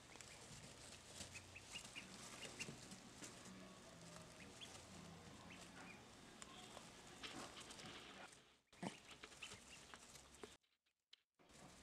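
Faint, high peeping of a black Muscovy duckling: short single peeps, scattered throughout, with a second of silence near the end.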